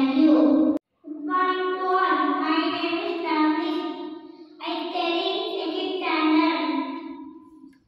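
A child singing into a handheld microphone in long, held notes, like a sung rhyme. The sound drops out for a moment just under a second in, then a child's singing carries on and fades away near the end.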